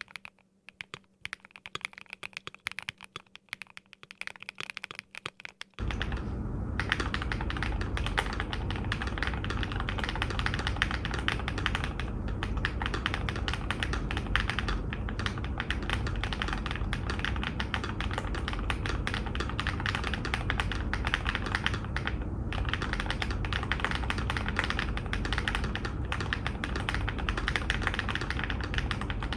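Typing on a Keychron Q1 aluminium mechanical keyboard with lubed Sangria switches, PE-foam and polyfill modded, with PBT keycaps. Separate keystrokes come first, then about six seconds in the typing turns fast and continuous over a steady low background noise.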